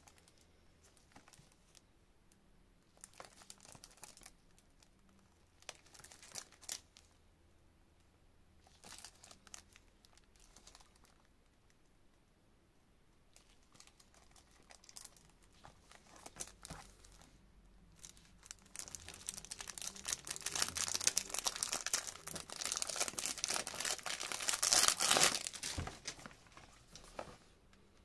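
Plastic film wrap on a perfume box crinkling as gloved hands handle and turn the box. It starts as scattered crackles, then turns into a denser, louder stretch of crinkling in the second half.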